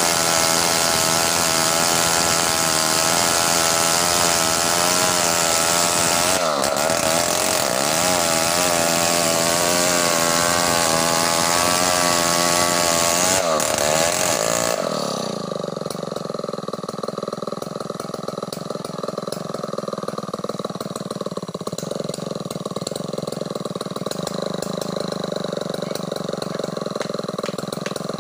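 Large chainsaw cutting through a big log, its engine at high revs under load, with the pitch dipping briefly twice. About halfway through it eases off to a lower, steadier idle.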